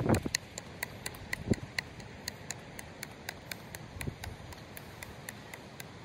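Field hockey stick tapping a hockey ball side to side on artificial turf during a one-handed, left-hand dribbling drill: quick, even clicks about four a second.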